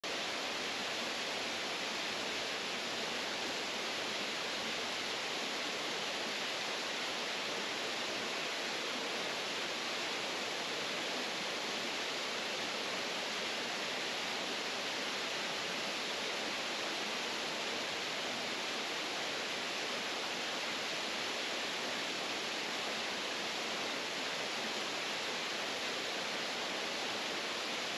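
Spruce Flats Falls, a mountain waterfall, rushing steadily, with no change throughout.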